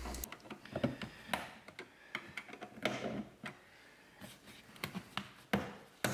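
A small flat-blade screwdriver clicks and scrapes against the plastic door handle trim of a Nissan Frontier rear door as the trim is pried off. A sharp snap comes near the end as the trim pops free.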